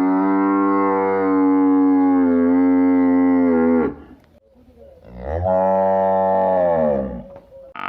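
A cow or buffalo mooing loudly twice: one long, level moo lasting about four seconds, then after a short pause a shorter moo that drops in pitch as it ends.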